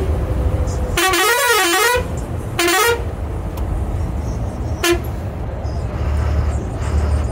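Bus horn sounding three times: a warbling blast of about a second whose pitch swings up and down, a short blast, then a brief toot, over the steady low rumble of the bus engine and road noise.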